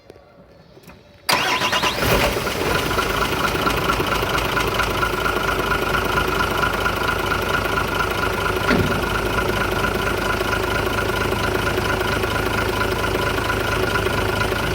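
Isuzu truck engine started about a second in, catching at once, then idling steadily.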